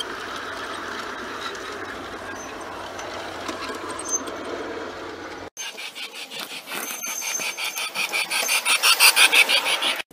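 G scale model freight train running on garden track: a steady rolling rattle of the cars going by. After about five and a half seconds comes a rhythmic clicking, about four a second, that grows louder toward the end, from model train wheels on the rails.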